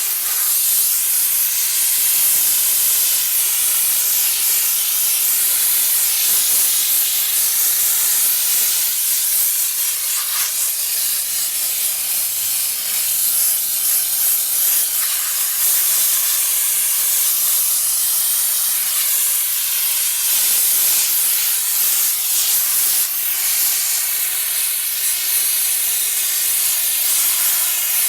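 Steady hiss of a jet of steam from a diesel-fired steam car washer's spray gun, with its energy high up and little low rumble.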